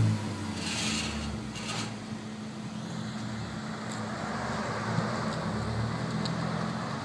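2012 Ford Focus 2.0-litre four-cylinder idling steadily through a muffler-delete exhaust: the rear muffler and one resonator are removed, and straight 2¼-inch pipe runs into a Y-pipe with dual 2-inch tailpipes.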